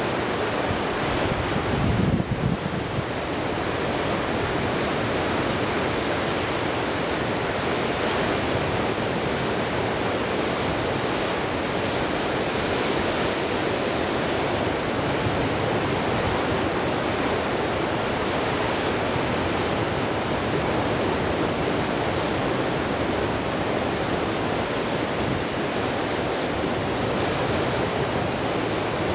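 Ocean surf breaking and washing onto the shore in a steady, continuous rush, with a brief louder low rumble about two seconds in.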